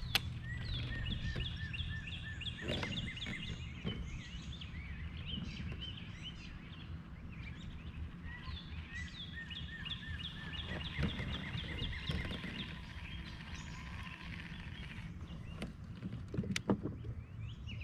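A songbird singing two long bouts of quick, repeated chirping notes, the first starting about half a second in and the second about eight seconds in, over a steady low rumble and a few small clicks.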